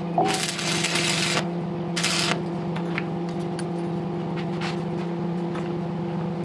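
Electric arc welding on a steel gate frame: a hissing crackle lasting about a second and a half at the start, then a short second burst about two seconds in, over a steady electric hum.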